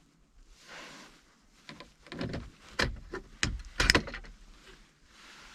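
Scraping and a series of sharp plastic clicks as a pry tool works loose the last retaining tab of a Ford F150's dash-mounted 4x4 switch, the loudest click about four seconds in.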